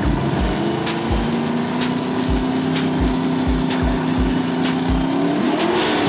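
Drag car engines held at a steady raised idle on the starting line, with low thumps a few times a second, then the pitch rising near the end as the revs are brought up for the launch.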